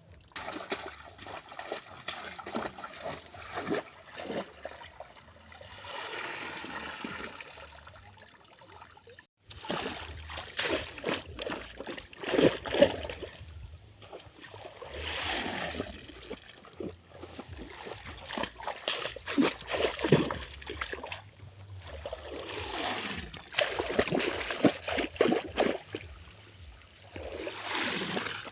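River water splashing and trickling in irregular bursts, with sharp splashes among them, as though stirred or lifted by hand or net; it drops out briefly about nine and a half seconds in, then comes back busier and louder.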